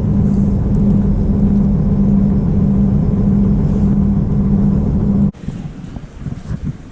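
A car driving: steady engine drone and road noise. It cuts off suddenly about five seconds in, giving way to a fainter rushing noise.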